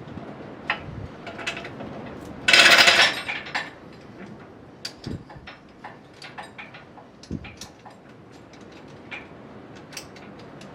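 Baler safety chain being hooked up: scattered metal clinks and taps, with one loud rattle of chain links lasting under a second about two and a half seconds in.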